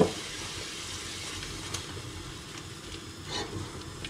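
Thick tomato and gram-flour curry paste sizzling in oil in a pan as it cooks out, stirred with a few faint scrapes and a short knock at the start.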